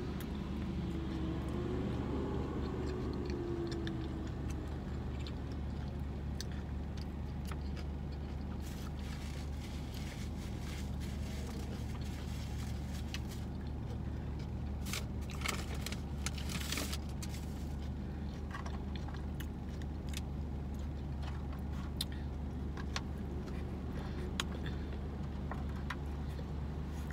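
Steady low hum of a car idling, heard from inside the cabin, with occasional light clicks and scrapes of fingers picking food from a foil takeout pan.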